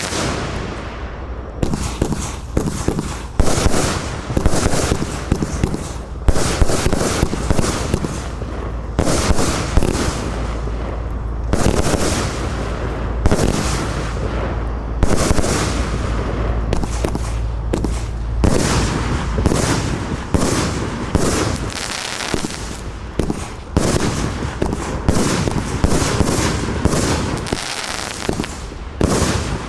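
A 131-shot compound fireworks cake of 25–30 mm tubes firing, a rapid run of launch thumps and aerial bursts several times a second with crackle between them, and a heavier low rumble for a few seconds in the middle.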